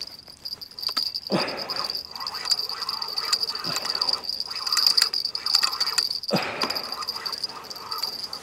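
Spinning reel being cranked hard against a hooked fish, its gears giving a steady high whine that swells and fades, with two brief rustles.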